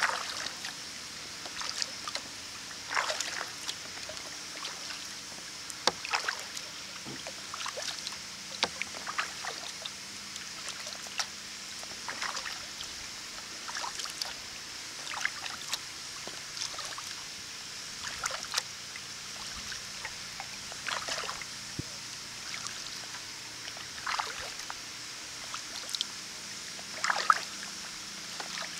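Kayak paddle dipping into calm water, one short splash and drip about every second or so as the blades alternate, over a steady high hiss.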